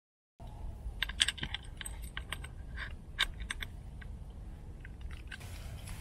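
Small irregular clicks and rattles of camera gear being handled, over a low rumble of handling noise on the microphone; a steadier rustle of clothing or fabric comes in near the end.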